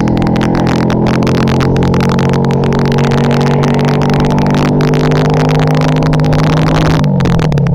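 Hero Splendor's single-cylinder four-stroke engine running loud through an Akrapovic full-system exhaust with no dB killer, held at steady revs under way; near the end the revs fall away.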